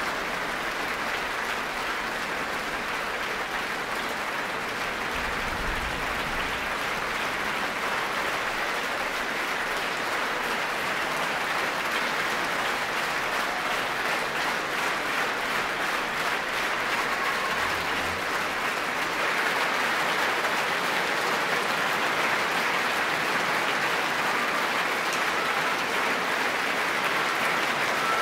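Large concert-hall audience applauding steadily, a dense even clatter of many hands. The applause grows a little louder about two-thirds of the way through.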